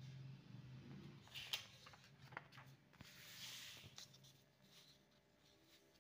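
Faint handling of printed paper sheets: a few light taps and clicks about a second and a half in, then a soft paper rustle around three to four seconds in as the sheets are moved to another page.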